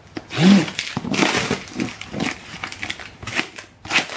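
Packing tape and plastic wrapping being ripped and crinkled off a cardboard parcel, in an irregular run of tearing and rustling, with a short pitched sound about half a second in.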